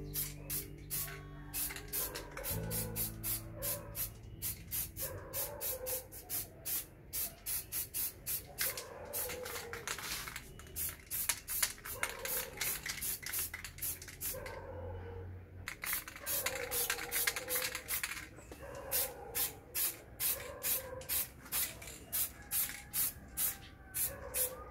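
Aerosol spray paint can spraying in many short hissing bursts, with brief pauses between runs of bursts.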